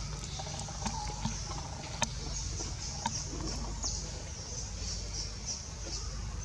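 Forest ambience: a steady, gently pulsing high insect drone over a low rumble, broken by a few sharp clicks and faint short squeaks near the start.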